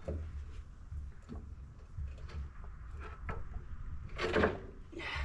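Scattered metal knocks and clanks from heavy forklift parts being handled, with one loud scraping clunk about four seconds in, over a steady low rumble.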